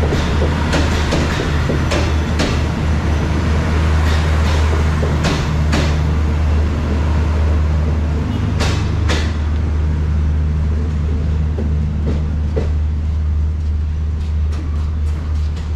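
Diesel-hauled passenger train rolling along a station platform: a steady low drone with irregular sharp clacks of the wheels over the rail joints.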